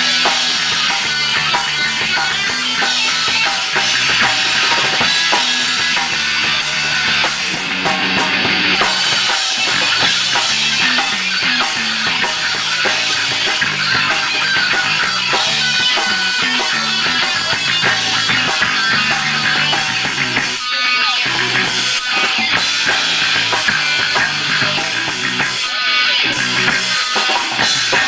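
Rock band playing live, with a drum kit and guitar going loud and steadily, and a brief break about three-quarters of the way through.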